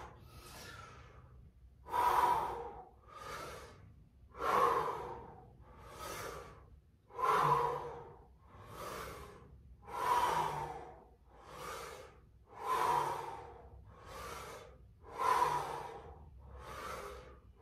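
A person breathing hard and rhythmically through a set of bodyweight squats. Louder and softer breaths alternate evenly, with a loud one a little under every three seconds.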